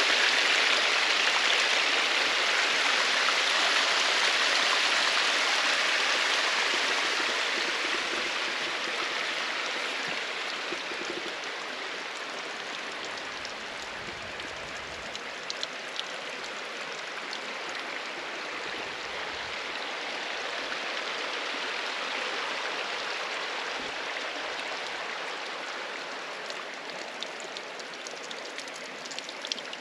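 Rushing water of a stream or waterfall: a steady hiss with no tones that slowly fades, with a few faint ticks near the end.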